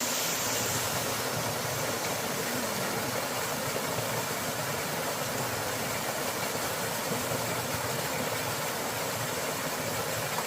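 Small waterfall rushing steadily, an even hiss of falling water.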